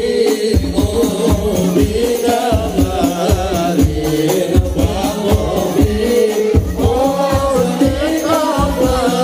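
Men's voices singing Islamic devotional salawat in unison through a microphone PA system, accompanied by hadrah frame drums (rebana) beating a steady rhythm.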